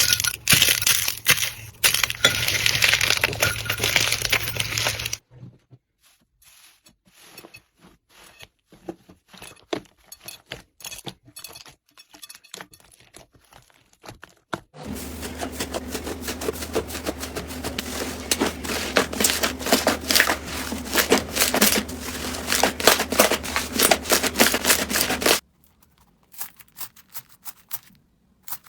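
Slime being squished and pressed by hand, giving runs of crackling, popping clicks. Dense and loud for the first five seconds and again from about 15 to 25 seconds, sparse and soft in between and near the end.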